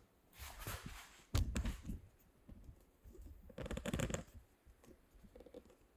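Handling noise: rustling and scraping with two dull knocks, the louder about a second and a half in and another near four seconds.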